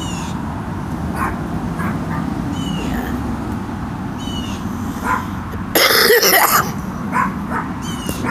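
A woman coughing briefly about six seconds in, over steady low background noise.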